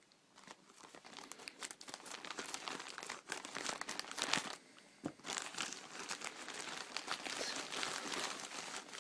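Thin plastic postal mailing bag crinkling and rustling as it is handled and pulled open by hand, with a brief quieter pause about five seconds in.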